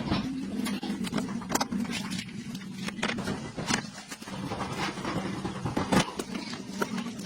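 A motor running with a steady low hum, with scattered sharp knocks at uneven intervals.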